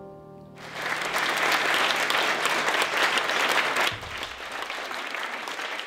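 A held musical chord dies away, and audience applause breaks out under a second in. The applause is loudest for about three seconds, then carries on more thinly and tapers off near the end.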